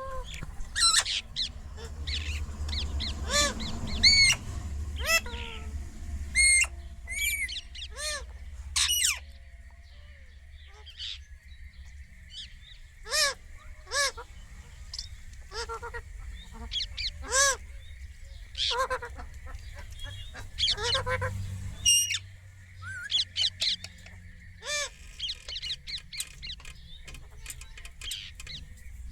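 Indian ringneck parrot calling: many short, sharp squawks, some single and some in quick runs, with irregular pauses between them, over a steady low hum.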